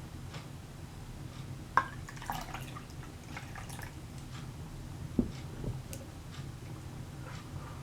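Wood fire in a fireplace crackling: scattered small pops and snaps, the sharpest about two seconds in and another a little past five seconds, over a low steady hum.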